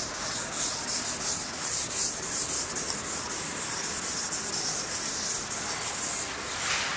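Handwriting: a writing tool scratching across a surface in quick, irregular strokes, with a continuous dry hiss.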